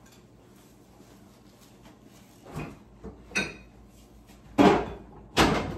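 A covered glass mixing bowl of dough being put into a refrigerator: quiet at first, then two light knocks, then two louder thumps near the end, the last like the fridge door being shut.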